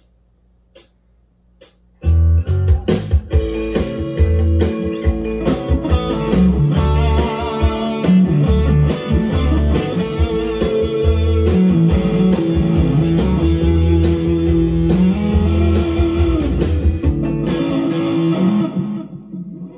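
Country train-beat backing track in A, with drums and bass, starting about two seconds in, and a Harley Benton HB TE-30 BE Telecaster-copy electric guitar played over it. The music breaks off near the end: the track was interrupted by an incoming phone call.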